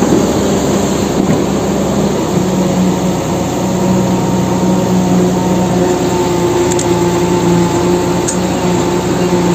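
Small electric motor and plastic gearing of a battery-powered toy excavator running, a steady whining hum. Two faint ticks come in the second half.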